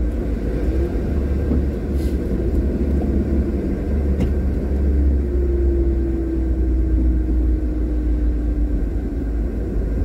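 Steady low rumble of a moving car's engine and tyres, heard from inside the car. A faint steady hum joins for a few seconds about halfway through.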